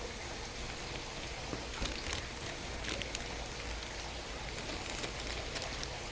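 Plastic UMAi dry-aging bag rustling and crinkling lightly as hands slide and smooth it on a table, with a few faint ticks, over a steady low background rumble.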